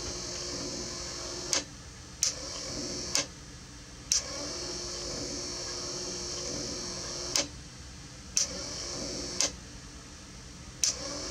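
S.E.V. Marchal wiper motor from a Citroën 2CV running on the bench with a high whir, now turning again after its brush spring tension was restored. It is cut off and restarted four times, with a sharp click at each break and each reconnection of the supply.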